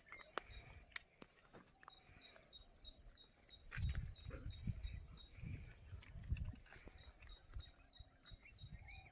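A bird repeats a short high chirp about three times a second, with a brief pause near the end. Low rumbling thumps come through in the middle.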